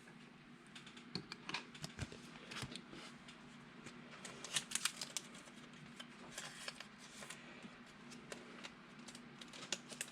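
Faint, irregular clicks and light rustling of trading cards being handled and sorted by hand.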